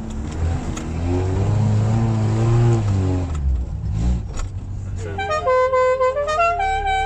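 Lada Niva's four-cylinder engine pulling off-road, the revs rising to a peak and dropping back about three seconds in. Near the end a few held notes that step up and down in pitch sound over the engine.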